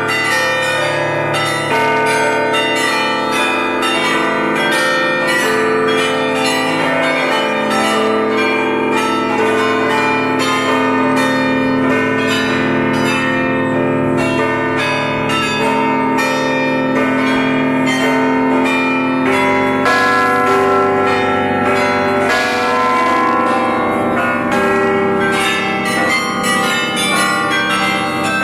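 The carillon of the Belfry of Bruges playing a tune: tuned bells struck in quick succession, their notes ringing on and overlapping.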